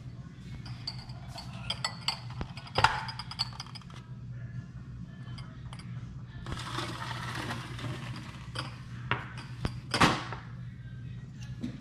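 Glass jars of panna cotta clinking against each other and being set down on a granite countertop, with scattered light clinks and two louder knocks, the second about ten seconds in as a glass goes down on the stone. A scraping noise lasts a second or so midway, over a steady low hum.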